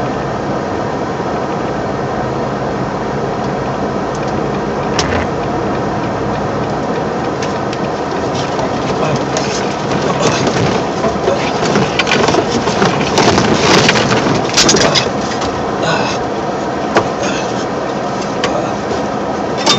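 Steady engine and tyre noise inside a truck cab on a snow-covered road. From about eight seconds in, a dense run of rattling and knocking builds up, loudest a little past the middle, and then thins out.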